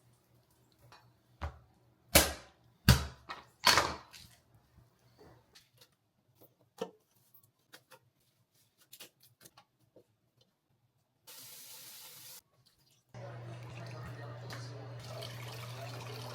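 Kitchen work sounds: four sharp knocks within the first four seconds, then scattered light clicks. From about thirteen seconds a steady rush of a faucet running into a sink, with a low hum under it.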